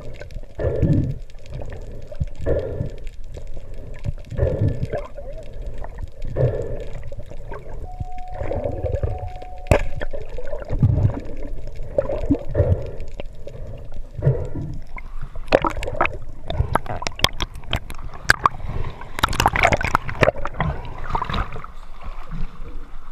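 Muffled underwater water sounds pulsing about every two seconds as the diver swims up after a speared amberjack. From about fifteen seconds in, loud splashing and sloshing as the diver and the fish break the surface.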